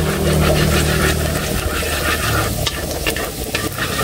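Minced garlic sizzling in oil in a wok, stirred with chopsticks that tick and scrape against the metal pan.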